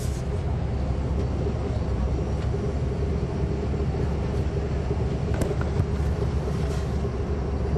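Diesel transit bus's Caterpillar C13 ACERT engine running steadily, heard from inside the bus: an even low rumble with a steady hum above it and a few faint ticks in the second half.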